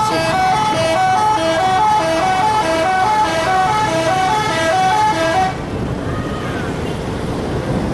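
A bus's telolet multi-tone musical horn playing a quick, repeating tune of alternating notes, then cutting off about five and a half seconds in.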